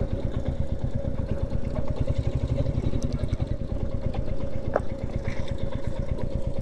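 Royal Enfield Classic 350's single-cylinder engine idling, with a steady, even low beat.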